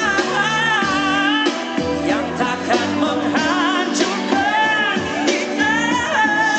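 A man singing live into a microphone over instrumental backing, his held notes wavering with vibrato, heard through the stage sound system.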